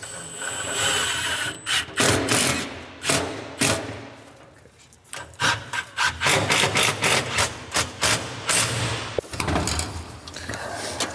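Cordless drill driving screws through the back of a steel wall cabinet in short runs, mixed with many sharp knocks and rattles from the sheet-metal cabinet being worked on.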